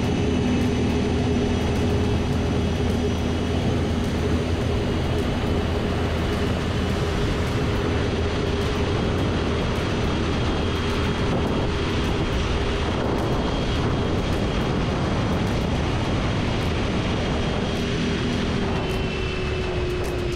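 Electric boat motor running at speed with a steady whine, over the rush of water and wind noise. Near the end the whine drops slightly in pitch.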